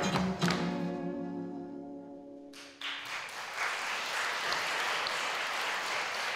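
A jazz song's final chord rings out and fades after a last tap strike from the dancers' shoes. About three seconds in, audience applause breaks out and keeps going.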